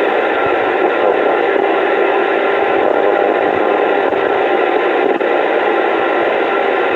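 CB radio receiving a steady hiss of static from a distant skip (DX) signal through its speaker, with faint steady whistle tones in the noise.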